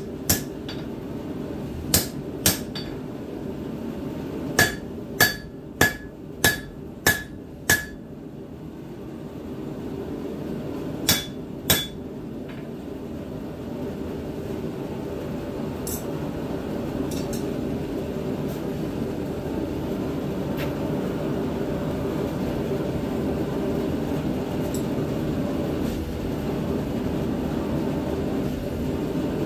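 Hand hammer striking a hot tomahawk head, forged from a black powder rifle barrel, on a steel anvil: about a dozen ringing blows in short runs over the first twelve seconds, then only a few light clinks. A steady rushing noise swells from about halfway.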